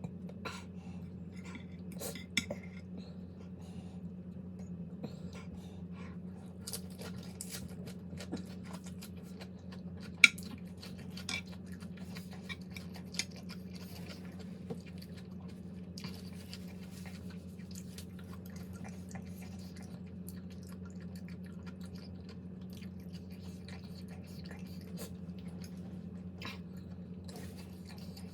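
Cutlery clinking on dishes and chewing while eating, with scattered short clinks and one sharper clink about ten seconds in, over a steady low hum.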